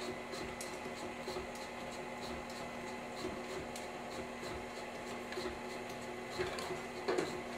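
Tilt-head stand mixer running at low speed with a steady hum, beating cake batter with its pouring shield fitted.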